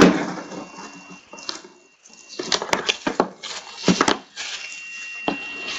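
Trading-card box and foil pack wrappers being handled on a table: a knock at the start, then irregular crinkling, rustling and small clicks as the box is opened and the foil is torn and crumpled.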